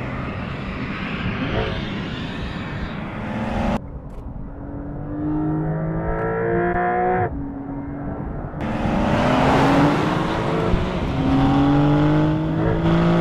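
Porsche 911 Carrera GTS's turbocharged six-cylinder boxer engine under hard acceleration near the top of its rev range. Its note climbs steadily and drops sharply at an upshift about seven seconds in and again near the end.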